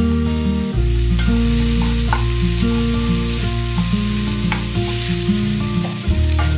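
Sizzling hiss of food frying in a pan, under soft background music with a steady bass line.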